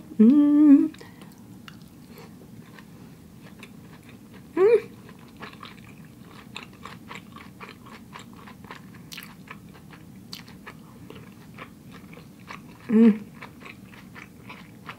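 Close-up chewing of a vegan kimchi sushi roll: soft, irregular wet mouth clicks and smacks. Three short hums break in: about a second in, near the middle, and a couple of seconds before the end.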